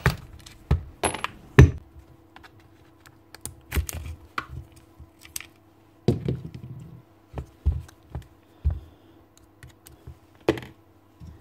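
Irregular clicks, knocks and clatter of a Bosch GSB 21-2 RE drill's plastic housing being handled and opened with a screwdriver. The loudest knocks come near the start and near the end. A faint steady hum runs beneath.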